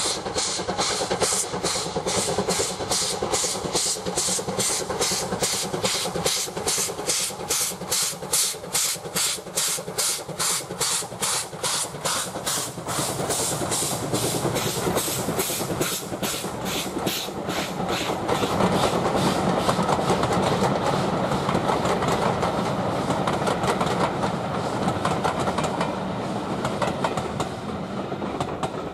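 Steam locomotive working hard as it passes, its exhaust beating about three and a half times a second. After the engine has gone by, the beats give way to the steady rolling of a long train of coaches on the rails, which fades near the end.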